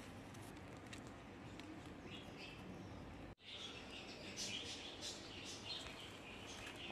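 Faint birds chirping: after a sudden break in the sound a little past halfway, a quick, irregular run of short high chirps. Before the break, faint outdoor background with a few light clicks.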